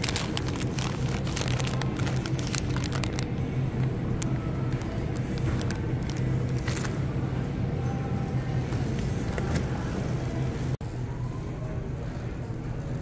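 Wire shopping cart rolling over a tiled store floor: a steady low rumble with clicks and rattles, busiest in the first few seconds. The sound breaks off for an instant about eleven seconds in.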